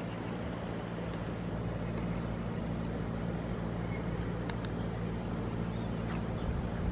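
A steady low mechanical hum, like a distant engine or generator running, under an even outdoor noise. A few faint, short, high chirps come about halfway through.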